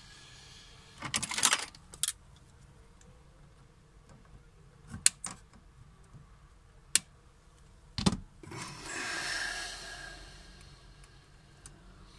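Small clicks and taps of a circuit board, wires and a soldering iron being handled in an open metal case. There are a few sharp knocks about five, seven and eight seconds in, followed by a soft hiss for a couple of seconds.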